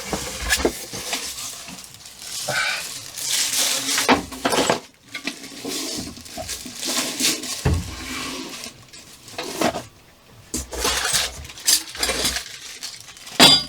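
Bench grinder and its parts being unpacked from a cardboard box: irregular rustling and scraping of packaging with clinks and knocks of metal parts being handled.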